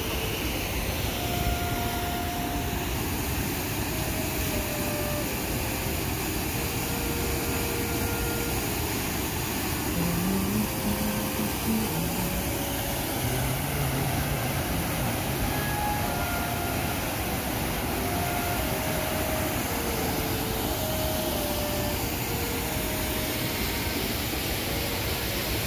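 Steady rush of a fast river running over rocks and through rapids. Faint soft held notes of background music come and go over it.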